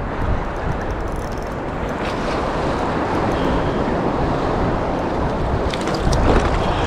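Surf water washing and sloshing around a wading angler, with wind rumbling on the microphone that grows stronger near the end.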